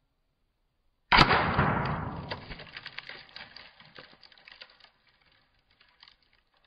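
A single sharp shot as a 25-grain slug hits and bursts an apple about a second in. A long fading tail follows, with many small scattered ticks of fragments landing over the next few seconds.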